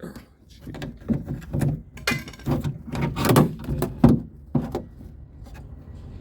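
Rapid clicks, taps and knocks from a 2021 Nissan Rogue's outer door handle being worked and pried at with a screwdriver. The sharpest knock comes about four seconds in, and the handling dies down a second later.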